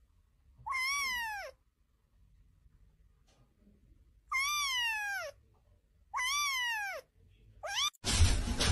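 A kitten meowing: three drawn-out meows, each rising then falling in pitch, then a short fourth one. Near the end a loud rushing noise with knocks starts abruptly.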